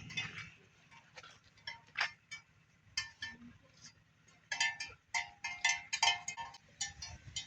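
Light metallic clinking, scattered at first, then from about four and a half seconds a quick, irregular run of short bell-like ringing strikes.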